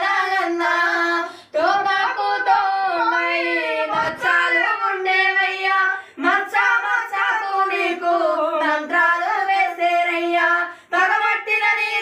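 A single high voice singing a slow melody in long held, wavering notes, breaking off briefly between phrases about a second and a half, six and eleven seconds in.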